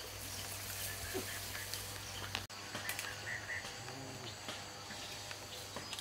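Steady high-pitched insect hum of a rainforest. There are a few scattered small clicks, and a brief dropout about halfway through, after which the low background rumble is gone.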